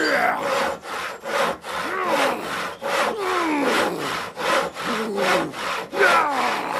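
Saw cutting through wood in quick back-and-forth strokes, about three a second, with a falling whine on some strokes.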